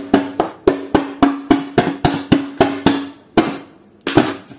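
A pen tip stabbing holes through a paper sheet in quick, even taps, about four a second, each with a short drum-like ring; the run stops a little over three seconds in, followed by a quick double tap near the end.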